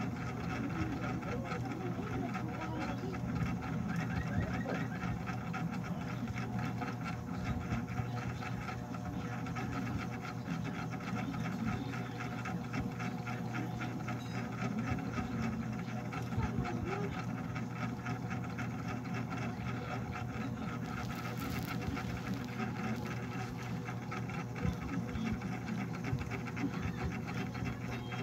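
A small motor humming steadily with a fast, even rattle.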